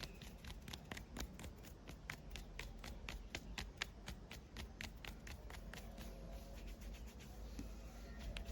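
A rapid, irregular run of sharp clicks and cracks from a body-cracking massage, about four a second, thinning out after about six seconds.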